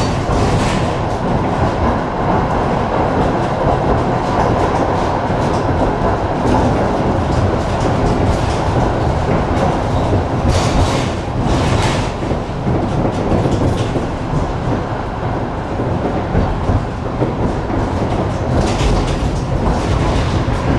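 Tram running along the track with a steady low rumble from wheels on rail. A few brief louder clattering hisses come about halfway through and again near the end.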